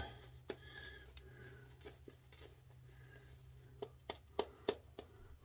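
Shaving brush working lather over a bearded cheek and jaw: faint soft scratchy brushing with a few light ticks, over a low steady hum.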